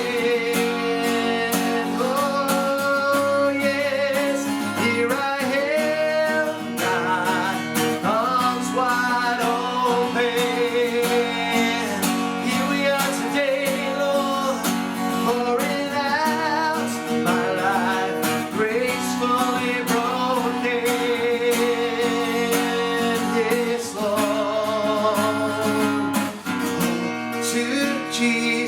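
Worship music: strummed acoustic guitar with a singing voice holding long, wavering notes, without clear words.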